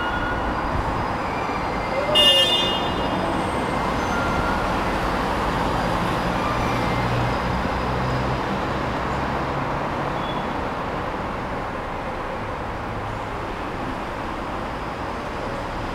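City street traffic noise: a steady wash of passing vehicles, with a brief high-pitched toot about two seconds in.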